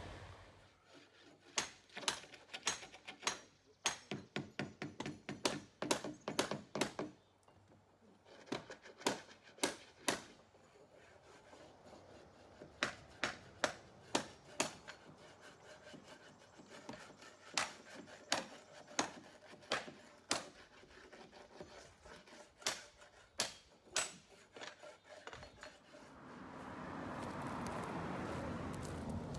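Irregular hammer blows on concrete foundation wall forms: sharp knocks, sometimes in quick runs of several a second, with short pauses between the runs.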